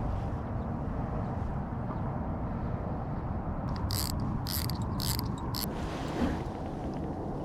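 Fishing reel giving four short ratcheting buzzes in quick succession, over a steady low rumble of wind on the microphone.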